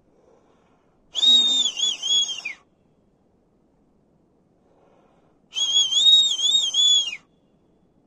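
A man's loud finger whistle, blown twice. Each blast is a high warbling tone about a second and a half long that wavers up and down and ends in a quick downward slide. It is a long-distance whistle call answering someone across the valley.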